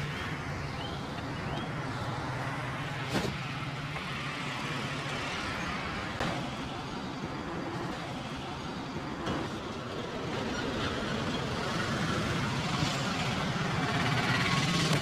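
Steady street traffic noise with a low engine hum, broken by a few sharp clicks and some brief high chirps near the start, growing a little louder toward the end.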